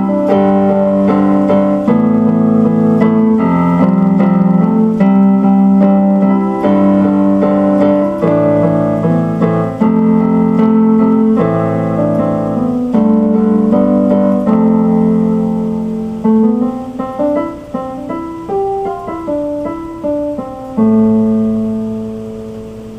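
Instrumental keyboard piano music: full chords for most of the stretch, thinning into a few separate notes, then ending on one held chord that fades away.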